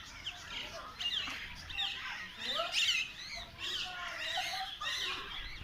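Many birds calling at once: a dense mix of short chirps and calls overlapping, many of them sliding quickly up or down in pitch.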